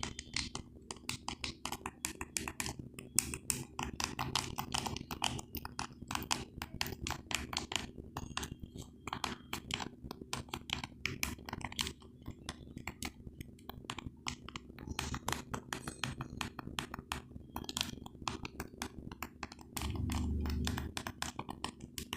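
Buttons of a remote control clicking, pressed rapidly over and over, several clicks a second. A brief low rumble comes near the end.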